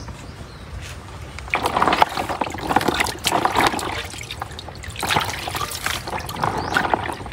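Water pouring and trickling in uneven bursts, starting about a second and a half in, with a few small knocks.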